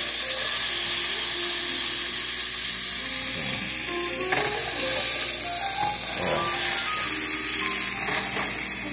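Beef roast searing in hot oil in a cast-iron skillet: a loud, steady sizzle, with a few clicks and scrapes of metal tongs as the meat is turned.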